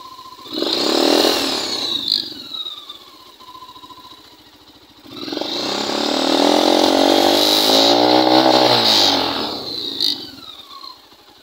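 Suzuki Thunder motorcycle's single-cylinder four-stroke engine, bored out to 152 cc, revved twice: a short blip, then a longer rev that climbs and falls back. It is running through the header pipe only, with no muffler fitted, blowing leftover oil out of the exhaust.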